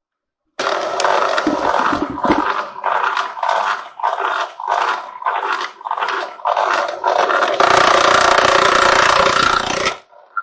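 CO-Z electric wire stripping machine's motor running, first in short pulses about two a second, then steadily for about two seconds before cutting off suddenly.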